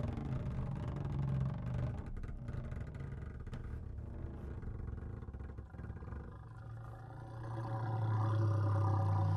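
Contemporary chamber ensemble playing a low, rumbling drone with scattered clicks. Near the end, a sustained low tone swells louder.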